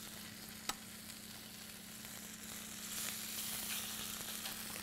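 Raw pork chops sizzling in hot olive oil in a stainless steel skillet, a steady hiss that grows a little louder about three seconds in. One sharp click sounds near the start, as the tongs touch the pan.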